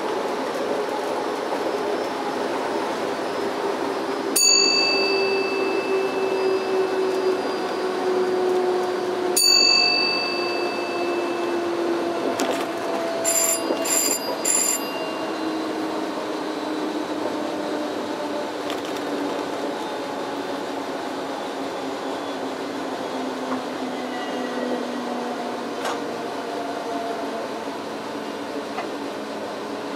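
NS class 1700 electric locomotive running, heard from inside the cab: its motor whine slowly falls in pitch as the train slows. Two single ringing chimes about five seconds apart sound from the cab equipment, then three short high beeps.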